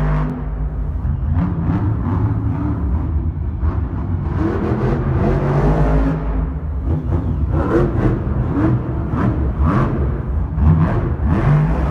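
Monster truck engines, supercharged V8s, running and revving hard, the pitch rising and falling with each rev. A string of short sharp sounds cuts through in the second half.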